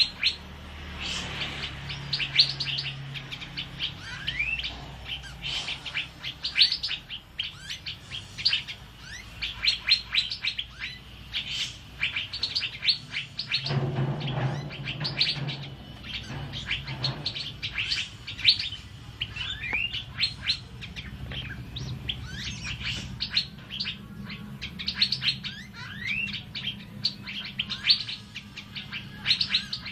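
Asian fairy-bluebird singing without pause: a quick run of sharp chirps and short rising whistles.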